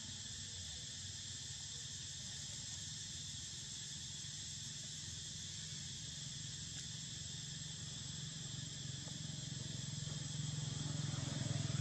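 Steady high-pitched insect chorus, with a low rumble that grows louder near the end.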